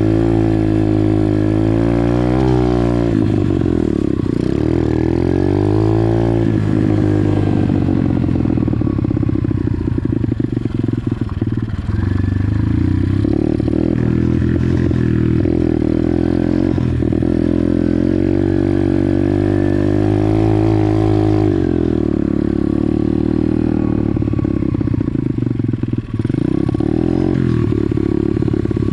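Pit bike's small single-cylinder four-stroke engine being ridden hard, its pitch repeatedly revving up and dropping back as the throttle is worked. Rattles and knocks from the bike join in from about eight seconds in.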